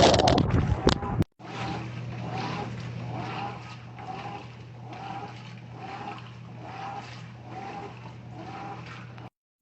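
Top-load washing machine running: a loud rush of water for about the first second, then, after a sudden cut, a steady motor hum with a rhythmic churning about every 0.7 s as the agitator swings back and forth.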